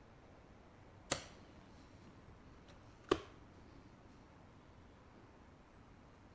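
Two sharp plastic clicks about two seconds apart, the lids of a fusion splicer's fibre holders and wind cover being snapped shut over the loaded fibre.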